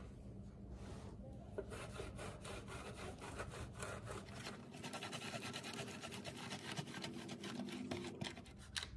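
A block of frozen butter dough being grated on the coarse side of a metal grater: a run of quick, repeated scraping strokes.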